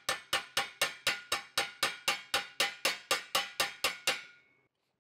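Flat metal body slapper striking a metal Rostyle wheel cover held over a dolly, a steady run of about four ringing blows a second that stops about four seconds in. The hammering around the dent, with the dolly pushing from underneath, is raising a deep dent in the cover's rim.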